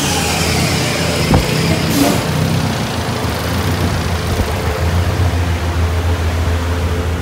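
Turbocharged 2.5L MZR stroker four-cylinder of a Mazdaspeed 3 idling on a chassis dyno after a pull, a steady low drone. A single sharp knock comes about a second and a half in, and a brief hiss about two seconds in.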